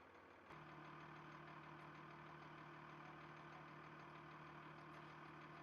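Faint, steady hum of an idling engine that starts about half a second in.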